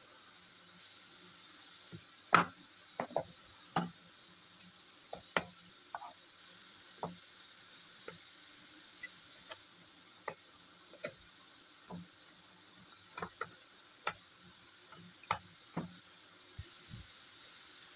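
Irregular sharp clicks and taps of small hand tools, side cutters and a knife blade, working the enamelled copper wire leads of a toroidal coil as they are trimmed and scraped. The loudest click comes about two and a half seconds in.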